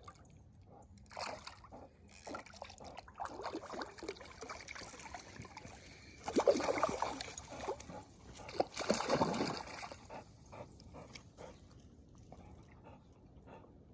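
Water splashing and sloshing as a hooked trout thrashes at the surface, with two louder bouts of splashing past the middle.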